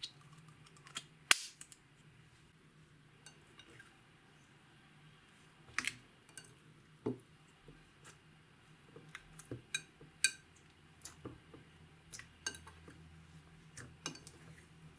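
Scattered clicks and light clinks of hard tools and makeup containers against a mixing bowl as makeup and glitter are worked into clear slime, with one sharp louder click about a second in.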